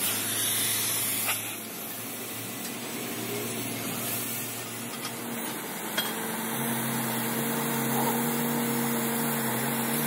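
Workshop machinery giving a steady hiss over a low hum that settles into a steady tone in the second half, with two sharp clicks, one a little over a second in and one about six seconds in.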